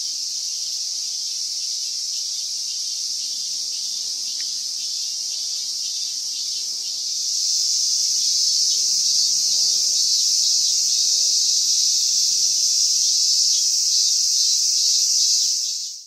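A chorus of cicadas in the trees, a continuous shrill buzz that grows louder about seven seconds in.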